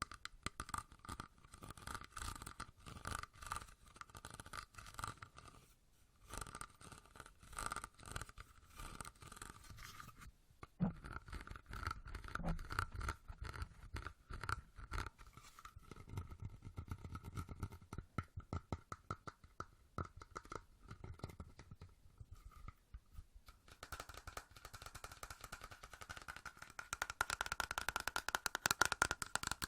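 Fast ASMR tapping and scratching close to the microphone, a dense run of quick small clicks. The pattern changes a few times and grows louder near the end.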